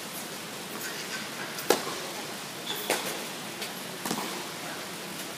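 Tennis rally on an indoor hard court: sharp pops of the ball struck by rackets and bouncing on the court, about one a second, the loudest about a third of the way in.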